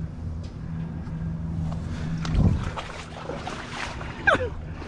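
Floodwater sloshing and splashing as someone wades through it, over a steady low hum, with a heavy thump about two and a half seconds in and a short falling squeak near the end.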